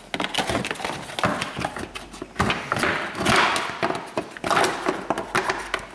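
Plastic under-engine splash guard being handled and worked into place under a car: a run of irregular knocks, clicks and scraping of plastic against the body.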